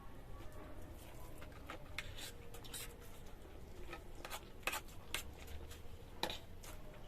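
Sounds of eating chowmein: scattered short clicks and light scrapes of food and utensils being handled and chewed, over a low hum.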